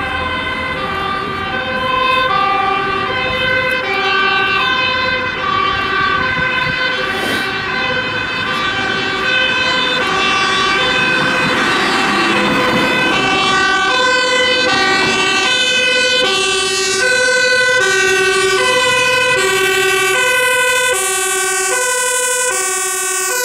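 Two-tone sirens of Dutch emergency vehicles, among them a fire engine, alternating between a high and a low note, each held a little over half a second. Around the middle a vehicle passes close with engine and tyre noise. Near the end the pitch of the approaching siren shifts as it comes in.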